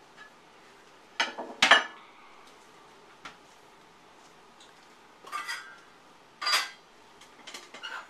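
Pots and dishes clattering as they are taken out and set down: a loud double clatter about a second and a half in, then further clanks about five and six and a half seconds in, and a lighter rattle near the end.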